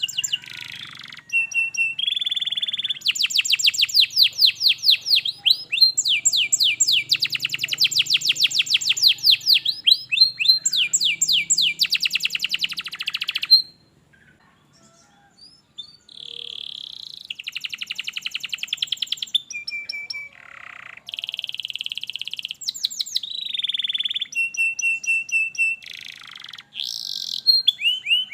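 Canary singing a long, varied song of fast rolling trills and repeated note phrases, with a break of about two seconds near the middle.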